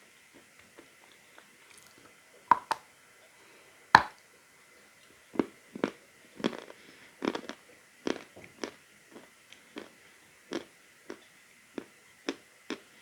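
Person biting into a piece of natural chalk and chewing it with crisp crunches: a couple of bites, one sharp loud bite about four seconds in, then steady chewing crunches about twice a second, getting quieter toward the end.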